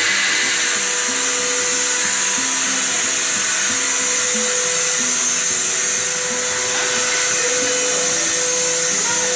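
Steady, loud rushing hiss with a constant hum from running workshop machinery. Music plays underneath, with low notes changing about twice a second.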